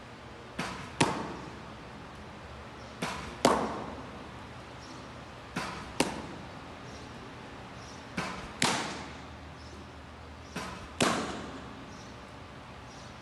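Baseballs smacking into a catcher's mitt, five times about every two and a half seconds, each sharp pop preceded about half a second earlier by a lighter click.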